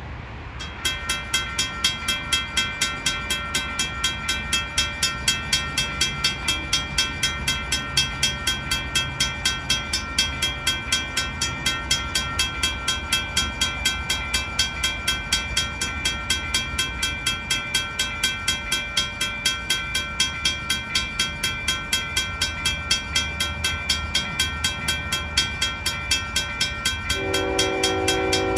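Railroad grade-crossing bell ringing steadily at about three to four strikes a second, over the low rumble of a train. Near the end a locomotive horn sounds one chord lasting about two seconds.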